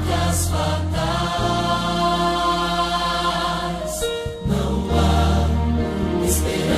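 Music: a choir singing long held chords over a deep steady bass, the chord changing twice.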